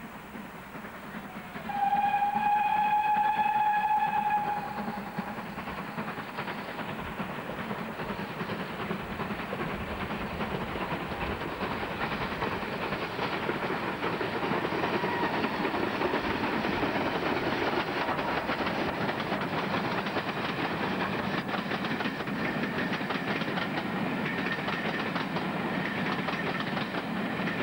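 Steam locomotive's whistle gives one long steady blast about two seconds in, then the train runs past, its wheels clattering over the rail joints in a steady noise that builds and holds.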